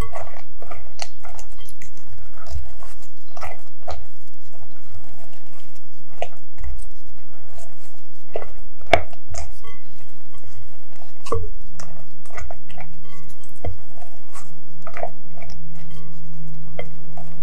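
Silicone spatula folding a thick cream cheese filling with crushed Oreo pieces in a glass bowl: irregular wet squelches and scrapes, several a second.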